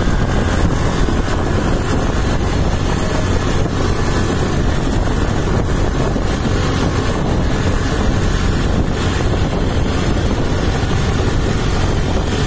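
Steady rumble of a moving vehicle on a paved road, with engine, tyre and wind noise on the microphone.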